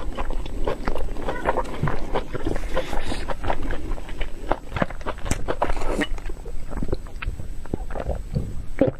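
Close-miked mouth sounds of a person eating: irregular wet chewing, smacking and crunching clicks.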